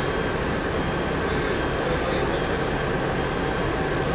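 Volvo B10M bus's turbocharged six-cylinder diesel engine running steadily, a thin steady turbo whistle sitting above the engine drone.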